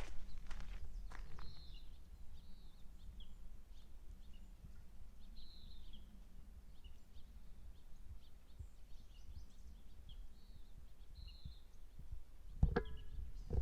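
Small birds giving short, scattered chirps over a steady low rumble. There are a few footsteps in the first second, and a louder scuff with a brief tone about a second before the end.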